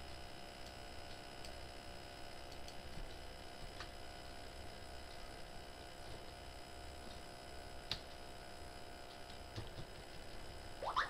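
Faint computer mouse clicks now and then over a steady low hum of room tone. Near the end, a quick rising chirp.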